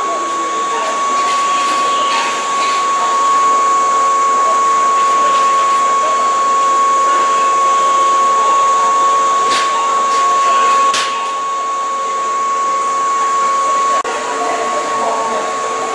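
Steady mechanical whirring with a constant high-pitched whine, from the equipment of an electric train standing at a station platform. Two short clicks come about 9 and 11 seconds in. The whine drops sharply about 14 seconds in, leaving a lower steady hum.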